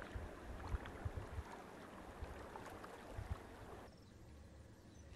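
Outdoor ambience over floodwater: an even rushing hiss with low wind buffeting on the microphone. It cuts to a quieter background about four seconds in.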